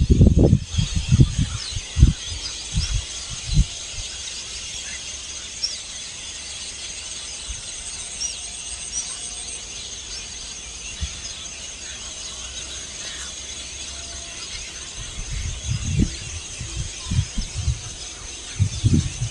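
Outdoor ambience at a bird roost: a steady high-pitched chirring of insects with scattered short bird calls. Low thumps and rumbles hit the microphone in the first few seconds and again near the end.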